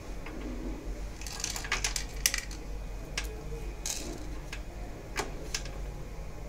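Fingers picking corn kernels off a processor and handling the CPU socket inside a desktop computer case: a quick run of small clicks and taps about a second in, then a few single clicks, over a steady low hum.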